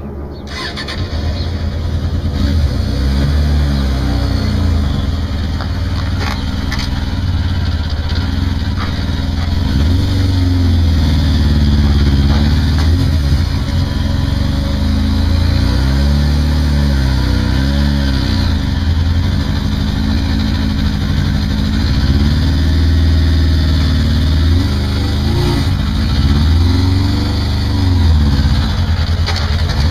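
Motorcycle engine running as the bike is ridden slowly up a steep loading ramp, the revs rising and falling again and again with the throttle.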